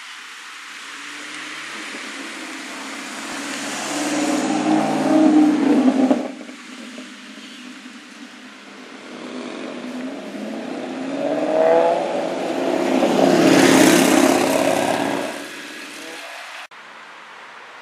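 A sports car's engine accelerating hard, twice: the first run climbs to its loudest about five seconds in and cuts off abruptly, and the second builds from about ten seconds to a loud pass near fourteen seconds, its pitch falling as it moves away.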